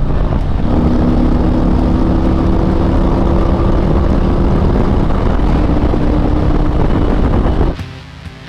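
Harley-Davidson Road Glide V-twin engine running steadily, loud, with a steady engine tone that sets in about a second in; it cuts off suddenly near the end.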